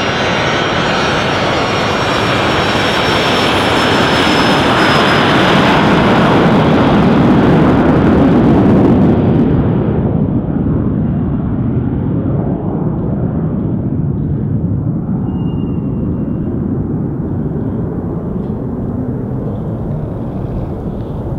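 Learjet 45's twin Honeywell TFE731 turbofans: a loud jet rush with a high whine as it taxis close by, then, after the high whine drops away suddenly about nine seconds in, a lower, more distant jet rumble as it lines up and starts its take-off run.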